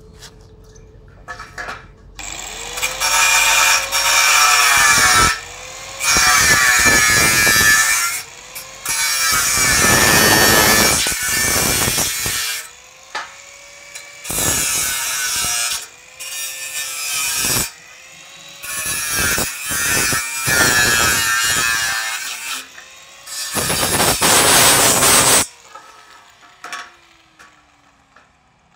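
Angle grinder working steel in about eight short bursts of one to three seconds, the motor whining up to speed each time the trigger is squeezed and winding down when it is let go.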